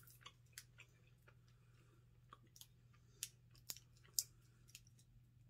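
Faint, scattered clicks and crinkles of a plastic snack packet being handled and opened, over a low steady hum.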